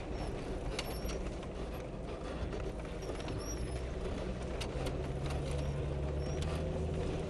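A 4x4's engine running steadily as it drives a rough dirt trail, its low note growing stronger about five seconds in. Scattered short clicks and knocks come from the vehicle over the uneven ground.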